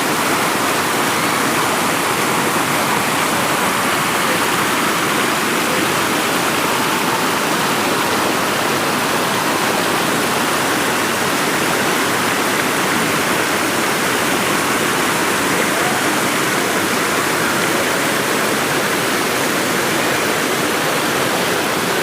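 River water rushing steadily over rocks, an even, unbroken roar.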